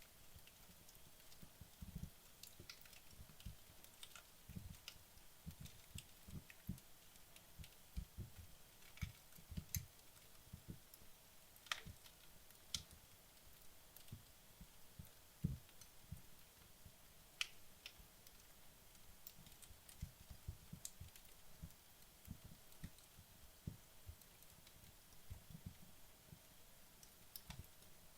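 Wood logs burning down in a fireplace: faint, irregular crackles and small pops every second or so, a few of them sharper, over soft low thuds.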